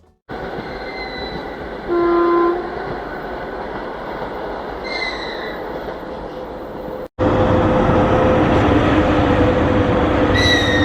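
Train passing on the railway: a steady rumble and clatter of wheels on the rails, with a few brief squealing, pitched tones over it. The sound cuts out abruptly about seven seconds in and comes straight back louder.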